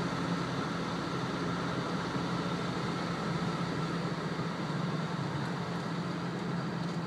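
Toyota four-wheel drive's engine running steadily at low speed, heard from inside the cab as it creeps through flood water over the road.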